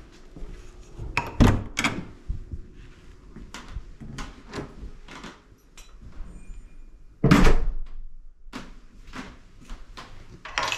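A series of short knocks and clicks, with two sharp knocks about a second and a half in and a louder, heavier thud about seven seconds in.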